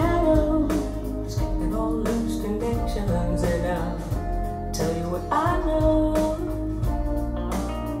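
Rock song with guitar, bass, drums and a sung vocal, played through a B&W 685 S2 two-way bookshelf speaker with a woven Kevlar cone.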